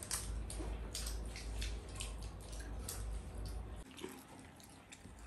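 Chopsticks and tableware clicking and tapping irregularly during a meal, over a low hum that stops about four seconds in.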